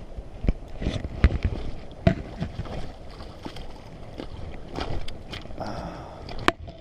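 Irregular water splashes and sharp knocks as a freshly landed trout, still strong, thrashes in the water while being handled.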